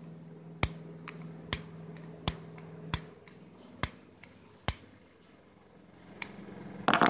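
Piezo igniter of a long butane torch lighter clicked over and over, a sharp click about every second, with no flame catching. A short rustle just before the end.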